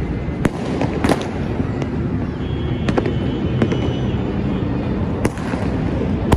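Many fireworks going off at once across a city. A continuous rumble of distant bursts runs underneath, with sharper, louder cracks from nearer ones every second or two.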